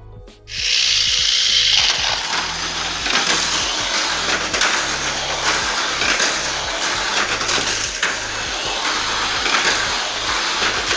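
Tamiya Avante Mk.III mini 4WD car (MS chassis, 3.5:1 gearing) running at speed on its track. Its small electric motor and gears give a loud high whine starting about half a second in, broken by frequent clicks and knocks.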